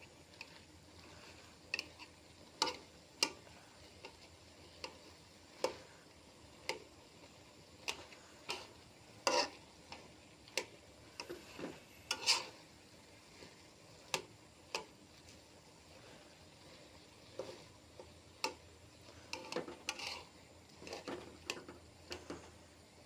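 A spatula clicking and scraping against a cooking pan while the food is stirred: irregular sharp clicks, about one a second, over a faint steady hiss.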